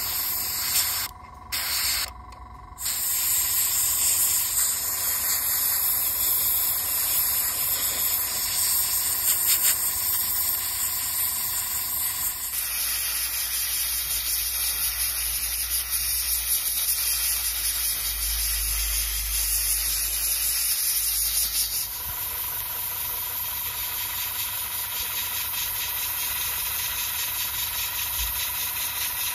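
Airbrush spraying paint: a steady close hiss of compressed air and atomised paint. It cuts off briefly twice near the start as the trigger is released, then runs on continuously.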